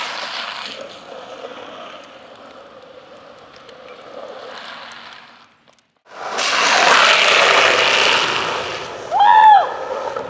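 Longboard wheels rolling and sliding over asphalt, a loud hiss that fades away and cuts off. After a brief break, a second slide swells and fades, with a short high squeal that rises and falls near the end.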